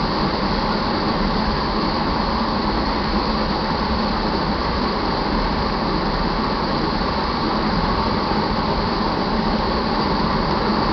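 Loaded crude oil tank cars of a BNSF freight train rolling past on the main line: the steady noise of steel wheels on rail, even throughout.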